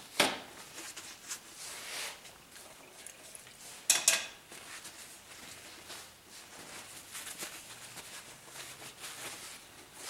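Small clicks, taps and light scrapes of hard painting tools being handled, with a sharp click near the start and two sharp clicks close together about four seconds in.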